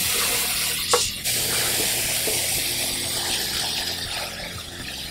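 Garden hose spray nozzle jetting water onto a transmission oil pan, rinsing off foaming gasket remover. A steady hiss that breaks briefly about a second in and tapers off near the end.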